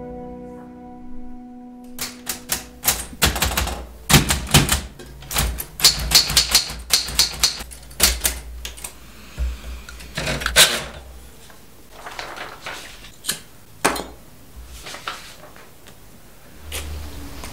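Typewriter keys clacking in quick irregular runs of typing, dense for several seconds and then sparser with pauses between strokes.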